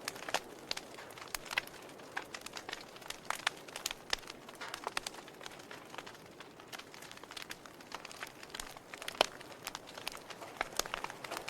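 Wood fire burning in a fireplace, crackling with irregular sharp pops and snaps over a soft steady hiss; one louder pop about nine seconds in.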